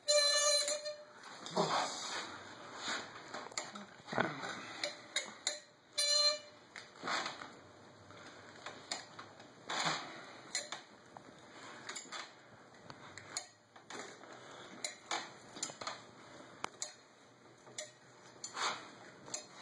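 Irregular metallic clinks and knocks of a wrench working a seized, torch-heated pedal loose from an old Schwinn Typhoon's crank arm, with a few short ringing clanks.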